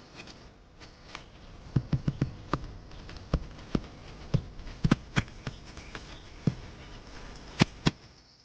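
A series of sharp knocks and taps at an irregular pace, about fifteen over six seconds, with the loudest near the end.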